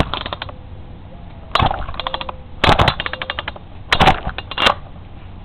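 Craftsman chainsaw's starter cord pulled four times without the engine catching. Each pull makes a sharp burst as the engine turns over, and the first three are followed by a quick run of clicks as it spins down.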